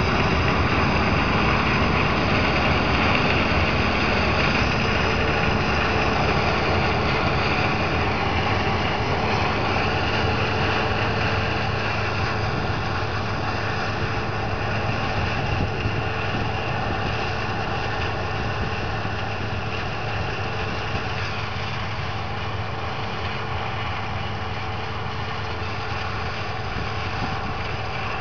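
Heavy diesel harvest machinery running steadily, a low engine hum with a mechanical roar over it that slowly grows fainter.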